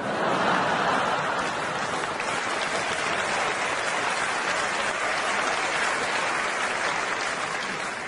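Audience applauding: a steady round of clapping that begins right after the punchline and eases off slightly near the end.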